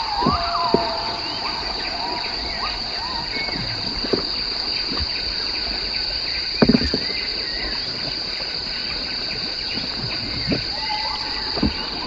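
Tropical forest ambience: a steady, shrill insect drone of crickets or cicadas runs throughout, with scattered whistling animal calls that come thickest at the start and again near the end. A few short knocks are heard, the loudest about six and a half seconds in.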